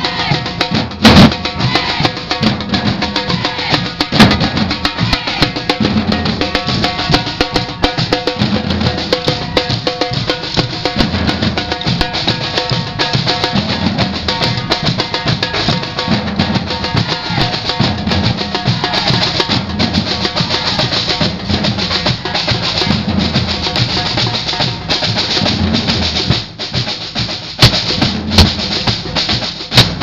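A samba drum band playing together: deep surdo bass drums under silver-shelled drums struck with sticks, in a steady, driving rhythm with a few louder accented hits.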